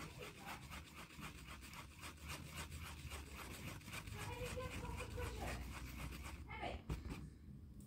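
Two-part JB Weld epoxy being stirred with a flat stick on cardboard: faint, even rubbing strokes, about five a second, that die away after about six seconds.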